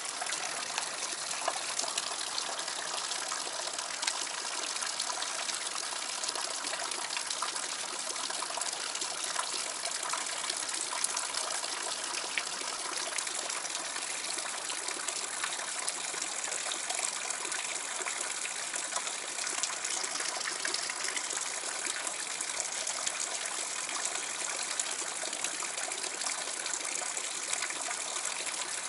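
Steady rush of water falling and splashing into a pool, an even hiss that does not change.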